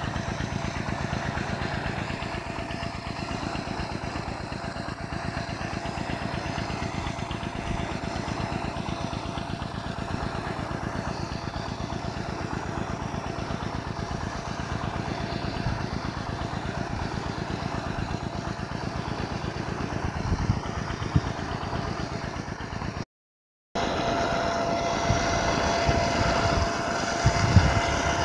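Nodolini S45 rain gun spraying a high-pressure water jet: a steady rushing noise with a fast, even pulsing. It breaks off for a moment near the end, then goes on a little louder.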